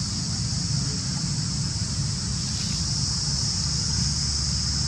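Wind noise rumbling on the microphone over a steady, high-pitched insect drone.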